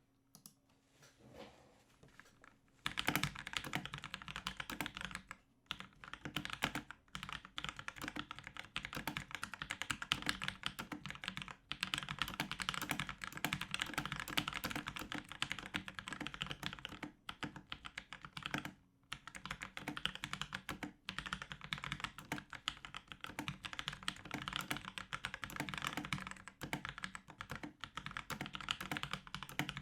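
Fast, continuous typing on a Drevo Tyrfing V2 mechanical keyboard with tactile Outemu Brown switches and clipped, lubed stabilizers, its case filled with packaging foam. The typing starts about three seconds in, with a few short pauses.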